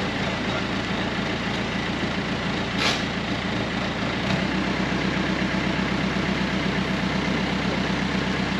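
Engine of a small crane running steadily while it lifts a marine generator; the engine note changes about four seconds in. A brief hiss near three seconds in.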